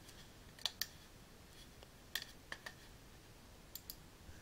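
About seven faint, sharp computer mouse clicks, some in quick pairs, over quiet room tone.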